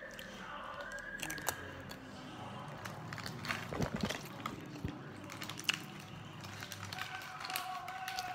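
Close crackling and clicking handling noises, like something being handled right by the microphone, with faint steady tones in the background near the end.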